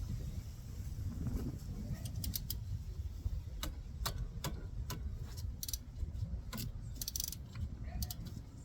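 Irregular sharp metallic clinks and clicks of hand tools being handled, a 14 mm socket and wrench fitted to the brake caliper bolts, over a steady low background rumble.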